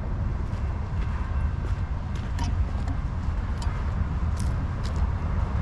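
A long train passing, a steady low rumble with a few faint high clicks over it.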